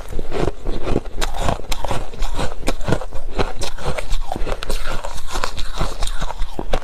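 Close-miked biting and chewing of soft freezer frost: a dense run of irregular crunches and crackles.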